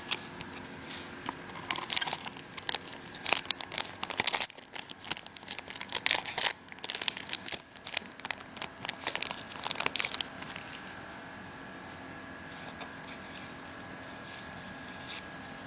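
Foil booster pack wrapper being torn open and crinkled by hand: dense crackling rustles for most of the first ten seconds, loudest about six seconds in, then only faint handling noise.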